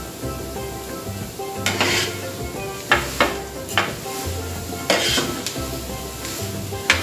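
A utensil stirring and scraping globe amaranth flowers around a hot, dry pan during pan-roasting, in several irregular strokes.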